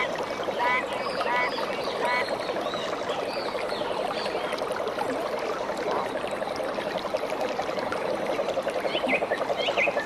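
A steady rush of running water with animal calls over it: short repeated croaking calls in the first couple of seconds, small high chirps of birds, and a fast pulsing chorus, typical of frogs, that grows louder near the end.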